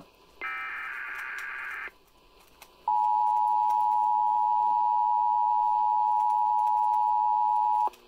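National Weather Service radio 1050 Hz warning alarm tone: one loud, steady pure tone held for about five seconds, sounded as a test of the alarm. About two seconds before it, a buzzy burst of EAS digital data tones lasts about a second and a half.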